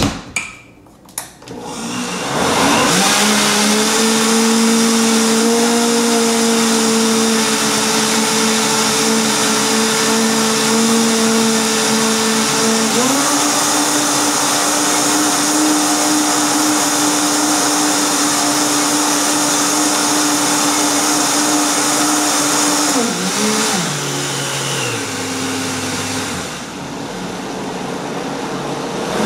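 Vitamix blender starting after a couple of clicks, then running steadily as it blends a thick waffle batter of oats, egg whites and banana. About halfway through the motor steps up to a higher pitch, and near the end it winds down in steps to a lower speed.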